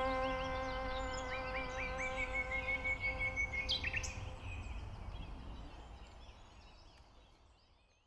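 A cello's last held note fades away while a common nightingale sings a quick run of repeated rising notes, then a long whistle ending in a couple of sharp clicks. Fainter song phrases follow as everything fades out near the end.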